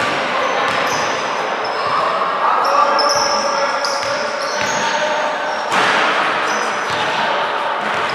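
A basketball bouncing on an indoor court, with short high squeaks and voices echoing in a large hall.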